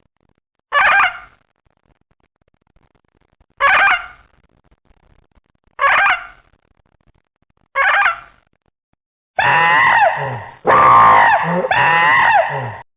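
Sound-effect calls of an imagined giant bird: four short cries, each about half a second and two to three seconds apart, followed by a longer run of wavering calls with several pitches sliding up and down at once near the end.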